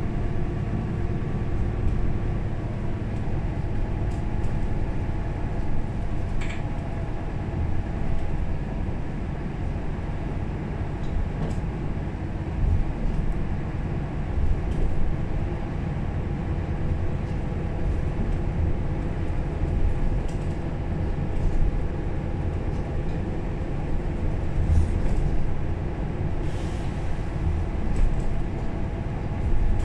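Interior ride sound of a 2009 Mercedes-Benz O530 Citaro Facelift city bus: a steady engine drone and road rumble heard from inside the cabin, with a few light clicks or rattles.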